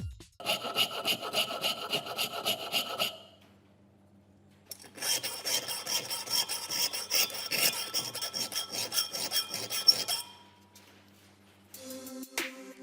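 Rapid repeated scraping strokes, several a second, in two bouts: a short one, then after a pause a longer one of about five seconds.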